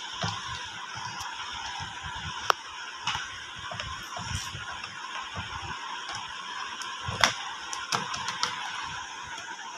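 Scattered clicks and light taps of hand work on an amplifier's parts over a steady hiss, with the sharpest clicks about two and a half and seven seconds in.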